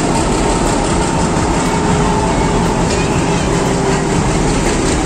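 Diesel engine of an Indian Railways WDS-6 shunting locomotive running as it rolls past close by: a loud, steady, dense rumble with a faint engine hum.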